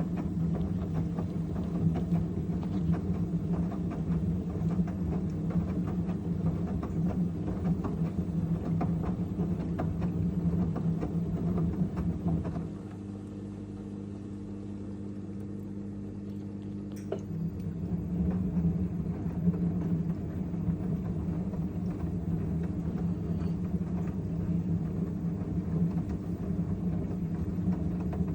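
LG F1222TD washing machine drum turning with a steady, rattly rumble from its failed drum bearings. The rumble eases off for a few seconds about halfway through, then comes back.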